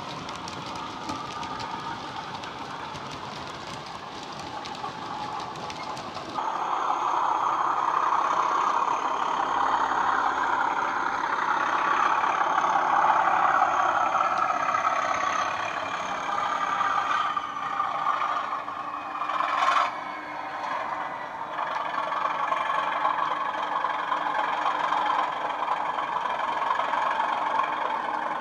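Model Bachmann Class 37 diesel with a DCC sound decoder playing a Coastal Class 37/0 engine sound (English Electric V12) through an EM1 and Megabass speaker pair. For the first few seconds it is quieter, with rapid clicking of the model wagons' wheels on the track. About six seconds in it steps abruptly to the louder, steady engine sound as the loco runs, with one sharp click around twenty seconds in.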